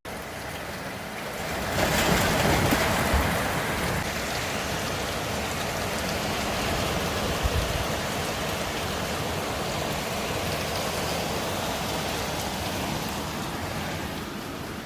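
Typhoon storm noise: strong wind and rain making a steady rushing, which swells about two seconds in and then holds level.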